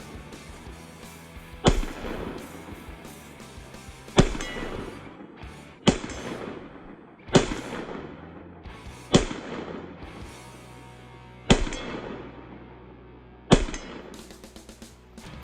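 Springfield XD-M Elite compact 10mm pistol firing seven single shots at an unhurried pace, each shot sharp and followed by a short echo.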